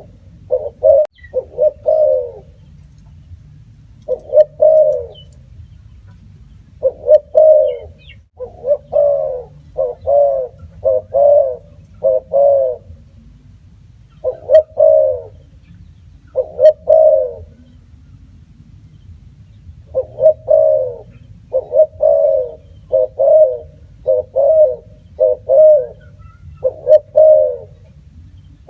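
Spotted dove cooing: low coos repeated in groups of two to six notes, with pauses of one to three seconds between the groups.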